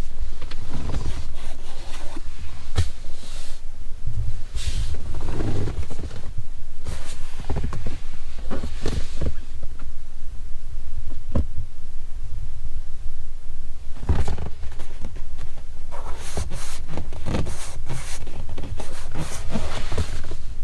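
Ford Maverick pickup on the move: a steady low rumble with frequent irregular knocks and clatters. The knocks come thickest about four to nine seconds in and again from about fourteen seconds on.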